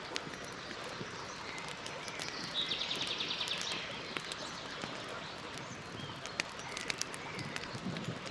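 Campfire crackling with scattered sharp pops over a steady soft hiss. A bird gives a rapid trill about two seconds in and a few faint chirps later.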